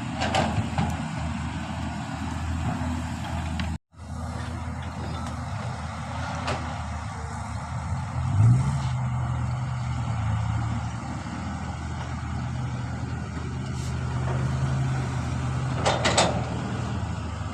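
Excavator diesel engine running steadily, revving up about eight and a half seconds in and holding at the higher speed, with a few short metallic clanks.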